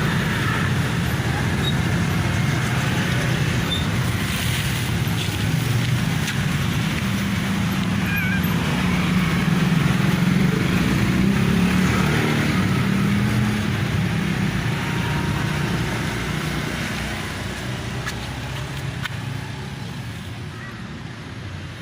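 Road traffic: a motor vehicle engine running steadily close by, fading away over the last several seconds.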